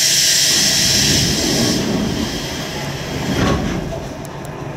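Diesel railcar Kiha 532 at a station: a strong compressed-air hiss that stops about two seconds in, over the steady low rumble of the engine running. A single knock follows about three and a half seconds in.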